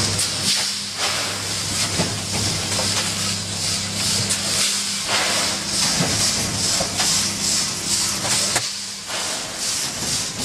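Vertical packaging machine with weigher running: a steady hiss over a low hum, with irregular clicks and knocks from its moving parts.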